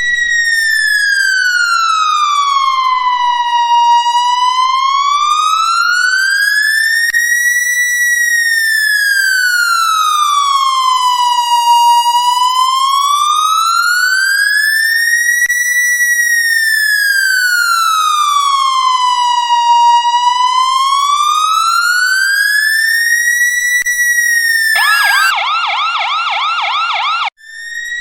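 Police siren in a slow wail, its pitch rising and falling smoothly about once every eight seconds. Near the end it switches briefly to a fast warbling yelp, then cuts off suddenly.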